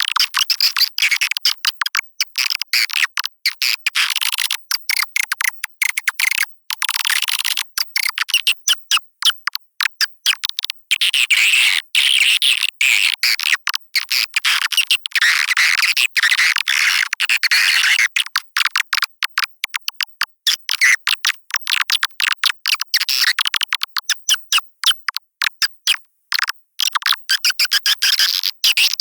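Edited recording of swiftlet calls, the kind played to lure edible-nest swiftlets into a swiftlet house: fast high-pitched chirping and twittering, cut by many brief gaps, with nothing in the low register.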